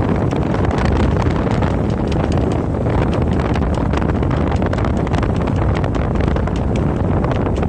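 Strong wind buffeting the microphone aboard a sailboat under way: a loud, steady, low rumble with frequent short crackles.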